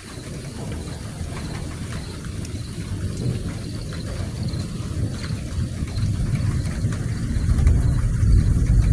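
Low rumble of thunder, growing steadily louder and deeper over several seconds.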